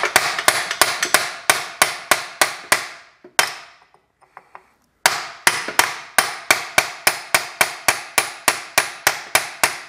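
Hammer blows ringing on a steel drift, driving a tight pin out of a VW Beetle's king-pin and link-pin spindle assembly. The blows come fast and even, about three a second, with a pause of about a second and a half near the middle.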